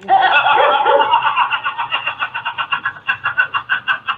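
A man laughing hard, breaking into quick, even bursts of about five 'ha's a second.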